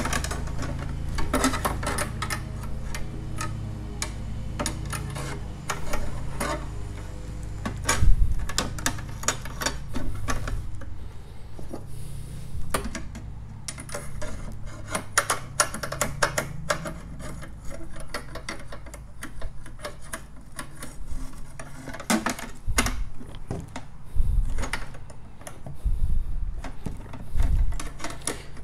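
Metal soundbar mounting bars being slid into their brackets and handled: irregular clicks, clinks and scrapes of metal parts, with a louder knock about eight seconds in, over a steady low hum.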